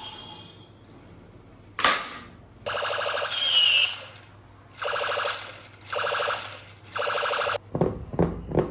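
A battery-powered toy plays an electronic sound effect through a small speaker: a rapid, buzzy rattling in four short bursts. A sharp click comes before the first burst, and a few more clicks follow near the end.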